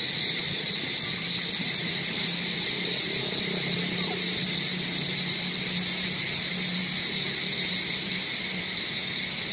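Steady, unbroken drone of insects, high-pitched and even in level.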